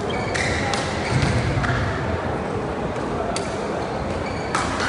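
Badminton rackets hitting a shuttlecock, a few sharp echoing strikes, with short squeaks of court shoes, over a steady murmur of voices in a large sports hall.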